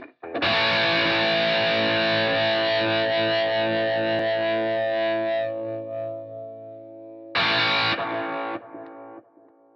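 A distorted electric guitar chord rings out for about five seconds and then fades. A second short chord hits near the end, is cut off sharply, and leaves a quieter fading tail.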